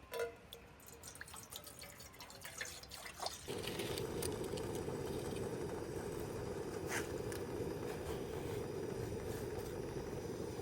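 Scattered drips and light taps, then a steady rushing noise that starts suddenly about three and a half seconds in and keeps going.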